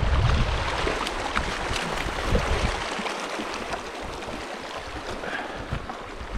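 Shallow mountain creek running steadily over rocks, with wind buffeting the microphone in the first second or so before easing off.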